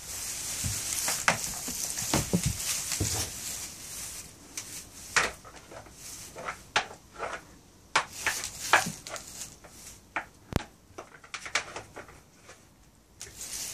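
Goats jostling in straw bedding: rustling straw with scattered sharp knocks and clicks.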